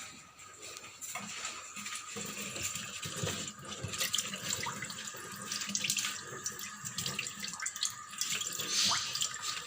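Running water splashing as a papaya leaf is washed clean by hand, starting about a second in.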